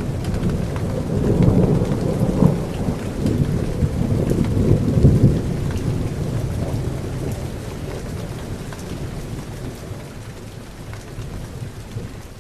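Rain falling during a thunderstorm, with a low thunder rumble that is strongest in the first half and slowly dies away while the patter of rain continues.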